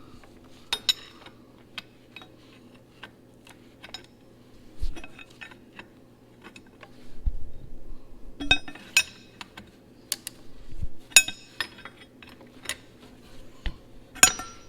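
Steel wrench clinking and clicking against bolts as they are tightened by hand, in irregular light metal taps with a steady low hum underneath.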